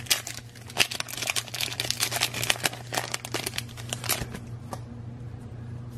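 Foil wrapper of a Pokémon TCG Flashfire booster pack crinkling and tearing as it is opened by hand. It makes a quick, irregular run of crackles that dies down near the end.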